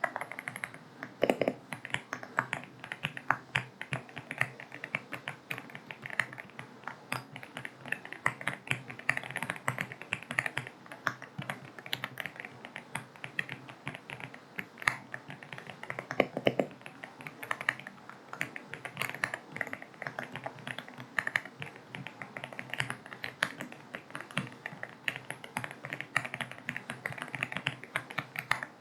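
Continuous typing on an AULA F75 mechanical keyboard with linear switches: a steady stream of quick key clicks, with a deeper, longer key thock twice, about a second in and about sixteen seconds in.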